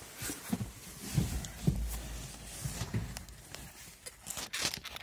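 Handling noise from a handheld phone camera moving around a car's interior: rustling with irregular knocks and thumps, a low rumble about a second and a half in, and a quick run of clicks near the end.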